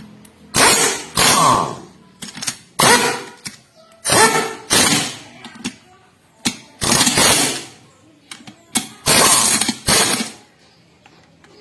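A power tool run in about ten short, loud bursts of under a second each, with pauses between them.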